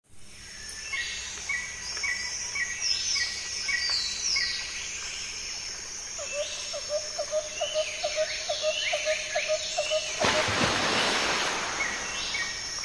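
Birdsong ambience: several birds chirping with quick falling whistles, and from about six seconds in a lower call repeated about four times a second. A brief rushing noise comes in about ten seconds in.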